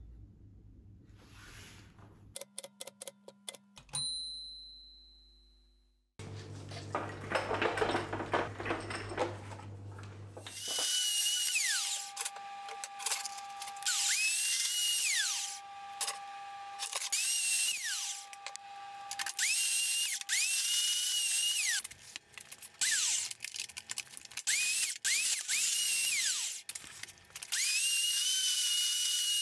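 Metal-cutting band saw running through rectangular steel tubing: a high steady motor whine that starts and stops again and again, falling in pitch each time it stops. Before it, in the first few seconds, come a series of clicks and a single ringing ding.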